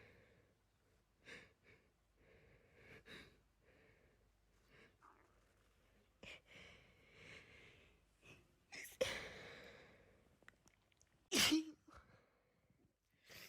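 A person's sneeze build-up: several short, breathy, hitching inhalations, then two loud sneezes, about nine seconds in and about eleven and a half seconds in.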